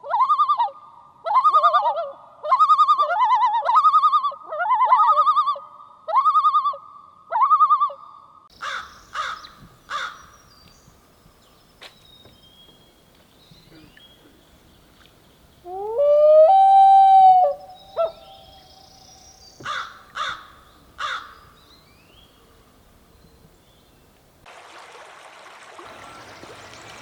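Wild animal calls: first a common loon's yodel, a quavering phrase repeated about eight times, then bull elk sounds during the rut: short grunts, one bugle about 16 s in that glides up into a held whistle for about two seconds, and more grunts after it.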